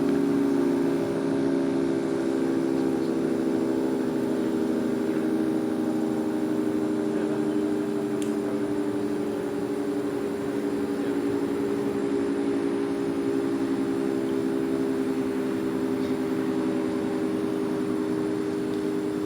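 Federal Signal 3T22A three-tone electromechanical tornado siren sounding its steady alert signal: a chord of several tones held steady, without rising or falling.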